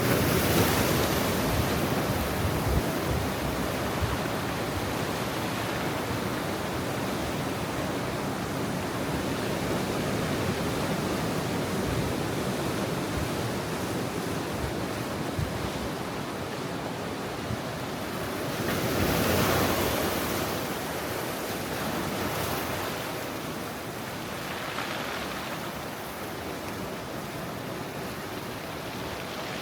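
Ocean surf at high tide: a continuous wash of waves, swelling louder just after the start and again about two-thirds of the way through, with a smaller surge after that.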